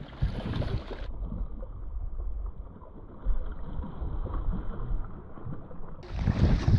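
Wind rumbling on the microphone by the water, with a splash a little over three seconds in as a bass strikes the swimbait at the surface. The sound is muffled through the middle of the stretch.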